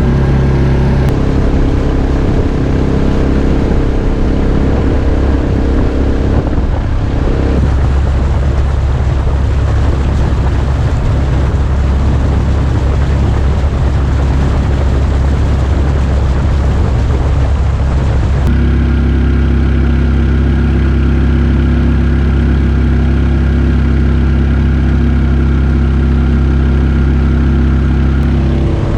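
Subaru EX21 single-cylinder engine of a Mokai jet boat running steadily under way, its note shifting abruptly a few times.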